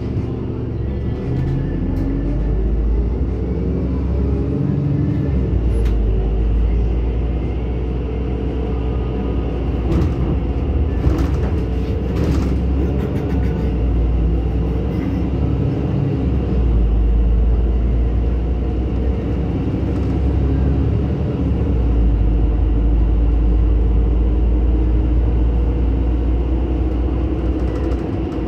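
NefAZ-5299 city bus running on the road, heard from inside the cabin: a steady low engine and road rumble whose pitch shifts several times as the bus speeds up and slows, with a few rattling knocks a little before halfway.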